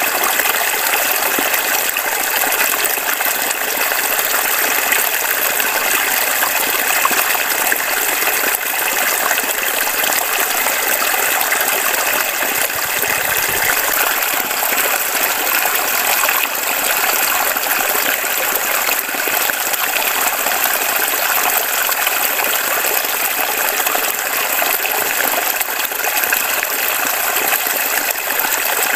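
Shallow stream running steadily over a rocky, gravelly bed.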